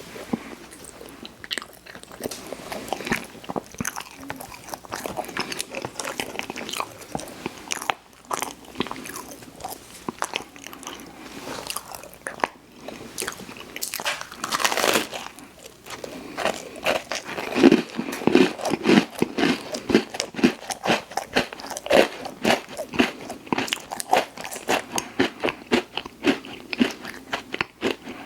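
Close-miked mouth sounds of a person biting and chewing snack food, with crunching and wet chewing. A louder noisy swell comes about halfway through, and then quick, regular chewing strokes run through the second half.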